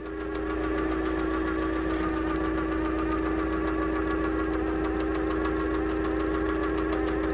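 Machine-like sound effect under a clockwork intro animation: a steady mechanical drone with a deep hum and a fast rattle running through it, fading in over the first second.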